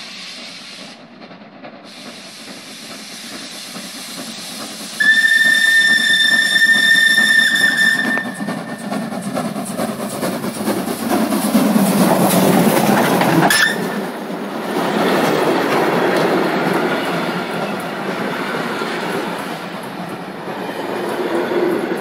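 Steam locomotive approaching and blowing one long, steady steam whistle for about three seconds. It then passes close by, loudest as the engine goes past, followed by its passenger coaches rolling by on the rails.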